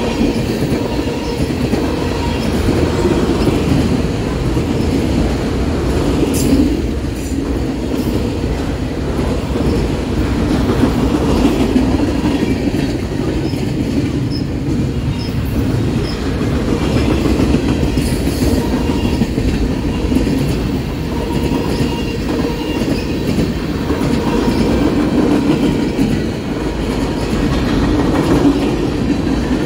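Freight cars of a Norfolk Southern train rolling past, a steady loud rumble of steel wheels on the rails with faint high wheel squeal.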